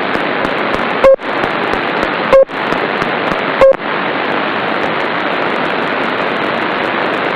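Shortwave radio (Etón G3) tuned to the 13.56 MHz NFC frequency in upper sideband, giving a steady hiss of static broken by a short loud beep about every 1.3 seconds: a Nexus 7 tablet's NFC reader pulsing as it searches for a tag. The beeps come three times, then stop once the tablet is locked and its NFC is switched off, leaving only static.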